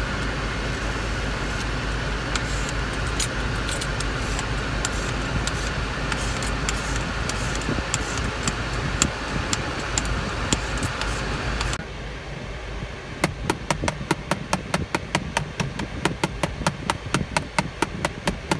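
For about twelve seconds, a steady hiss with a few light clicks as a plastic squeegee presses a tempered glass screen protector onto a car touchscreen. Then a long run of sharp taps, about four a second, as the glass protector is struck with a hard object to show its impact strength.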